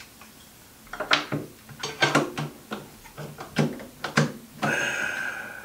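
One-handed bar clamps clicking and knocking as they are repositioned and tightened against wood, about seven sharp clicks spread over a few seconds. A steadier squeak of about a second follows near the end.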